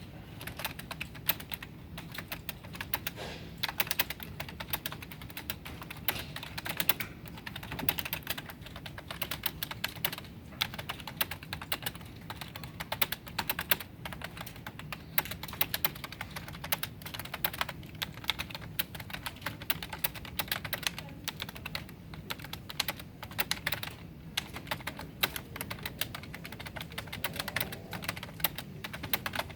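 Fast typing on a computer keyboard: a dense, uneven stream of key clicks with brief pauses. The pace is about 59 words per minute.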